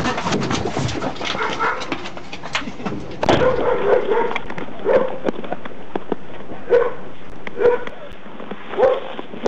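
Rustling and knocking from a man scrambling out of a police car's caged rear seat, then a dog barking in short single barks about a second apart.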